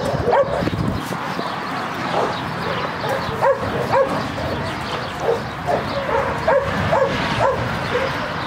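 Puppies yipping and whining in short high calls, one after another, at irregular intervals.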